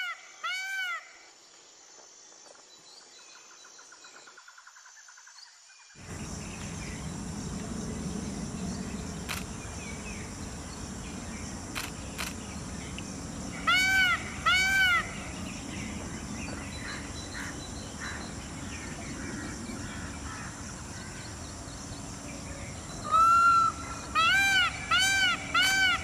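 Indian peafowl calling: short, clear calls repeated about twice a second at the very start, then two calls midway and a fast run of calls near the end. Between them is steady outdoor background noise, which comes in suddenly about six seconds in after a quiet stretch.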